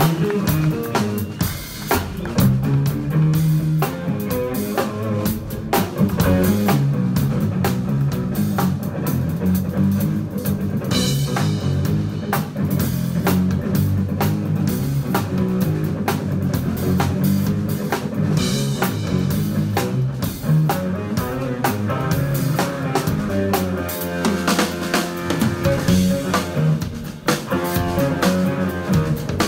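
Live jazz-funk band playing: electric guitar over electric bass and a drum kit, with steady drum hits and a moving bass line.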